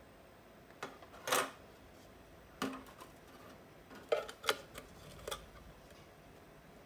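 Light clicks and clinks of round LED boards being handled and set down inside a metal lamp housing, a scatter of about seven short taps with a brief rattle near the start as the boards knock against the metal.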